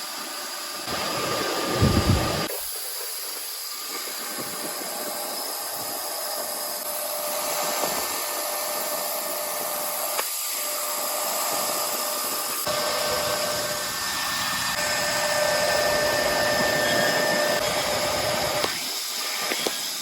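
CNC milling machine cutting metal: a steady hissing machine noise with faint steady whining tones. A few low thumps come about two seconds in, and the sound changes abruptly several times.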